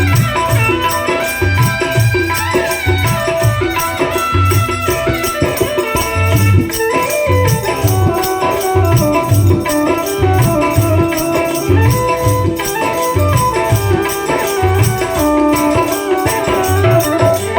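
Instrumental break in a Hindi folk-devotional song: a melody line over a steady drum beat and a rattling, jingling percussion keeping time.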